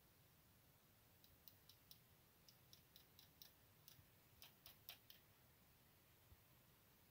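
Faint, irregular clicks of hand pliers working a wire end, about a dozen over some four seconds. They come closest together and loudest about four to five seconds in.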